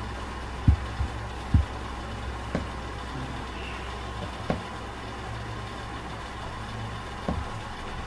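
A steady low hum with five short, soft clicks spread through it, the two loudest in the first two seconds: mouse clicks at a computer.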